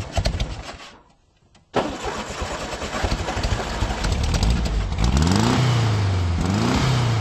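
A car engine running and revved several times, each rev rising and then falling, after about a second of near silence early on.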